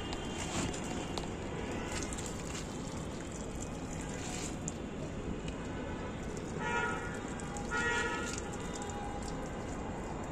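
Water pouring from a plastic watering can onto loose soil in a large clay tub, a steady splashing patter. Two short pitched calls stand out about seven and eight seconds in.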